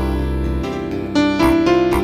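Background music played on a keyboard, a melody stepping between notes every half second or so over held bass notes.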